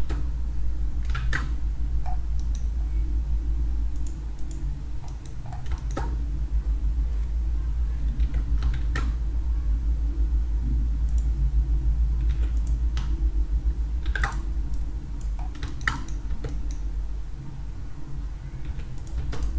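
Computer keyboard keys and mouse buttons clicking irregularly, a few taps at a time, over a steady low hum.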